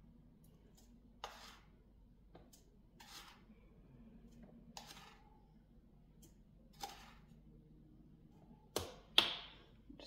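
Ground coffee being scooped and tipped into a coffee maker's filter basket: four short rustles about two seconds apart, then two sharper knocks close together near the end.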